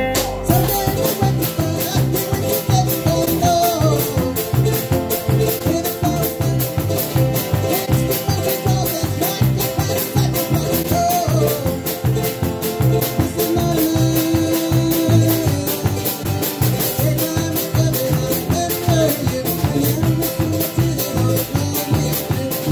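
A live acoustic folk-bluegrass band playing on upright bass, acoustic guitars and a drum kit. A crisp, even beat of about four hits a second runs under the plucked bass line and the guitar strumming.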